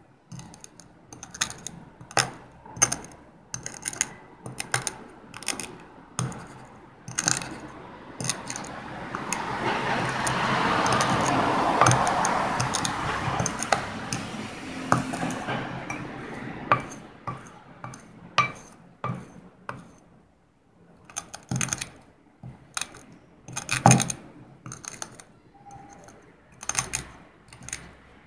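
Metal spoon grinding crushed eggshell in a ceramic bowl: irregular clicks and taps of the spoon on the bowl and shell grit. Around the middle it turns into a continuous gritty scraping for several seconds.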